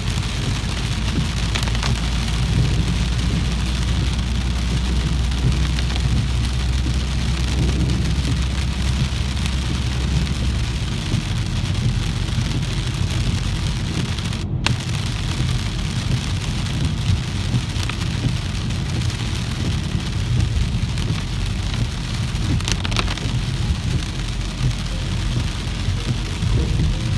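Heavy rain falling steadily, with a low rumble underneath. The sound drops out for a split second about halfway through.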